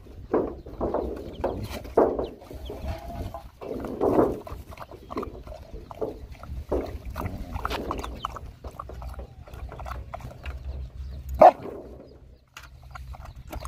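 A litter of puppies eating noisily from a plastic bucket: quick irregular lapping and slurping with brief dog vocal sounds as they jostle. A single sharp knock stands out near the end.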